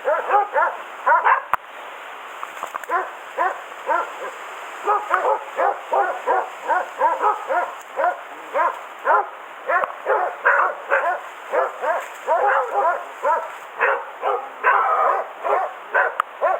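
Boar-hunting beagles baying steadily at a wild boar holed up in its bed, a rapid run of barks about three or four a second with a short lull about two seconds in.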